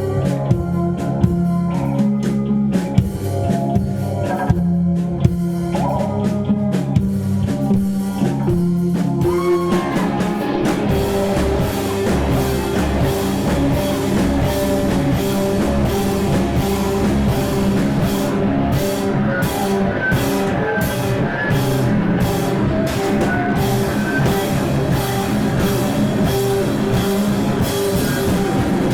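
Live rock band playing: electric guitar, bass and drum kit. The first stretch has held low notes with single drum hits, then about ten seconds in the full band comes in dense and loud, with a quick drum pattern driving it.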